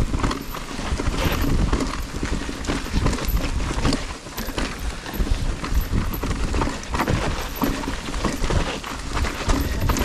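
Electric mountain bike clattering over rough, rocky trail: tyres hitting stones and the frame and chain rattling in quick, irregular knocks. Heavy wind rumble sits on the helmet-camera microphone.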